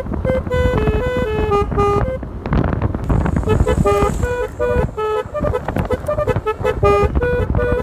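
Basuri telolet electric air horn on a motorcycle playing a melody of short stepped notes, breaking off briefly about two seconds in and then carrying on, over a steady low rumble.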